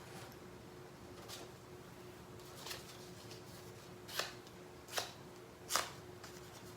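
Sandpaper rubbed by hand along the edge of a laminated paper fingerboard deck: a few short, scratchy strokes spaced irregularly, the last three, about a second apart, the loudest. A faint steady hum sits underneath.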